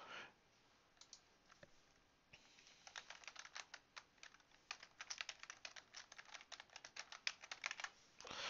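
Faint typing on a computer keyboard: a few scattered clicks, then a quick run of key clicks from about two seconds in until near the end.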